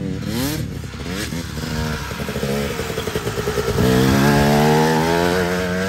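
Dirt bike engine revving up and down as it is ridden over the track. About four seconds in it passes close by, louder and holding a steady high rev.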